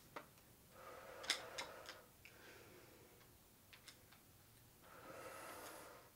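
Faint, scattered light clicks from PowerBlock adjustable dumbbells shifting in the hands during overhead tricep extensions, with a soft exhale about five seconds in.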